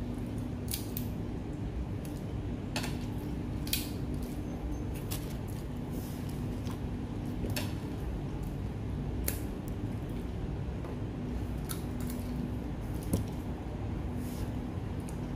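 Steamed mud crab being eaten by hand: irregular sharp clicks and crackles of crab shell being cracked and picked apart, with utensils clicking against shell and plates, over a steady low hum.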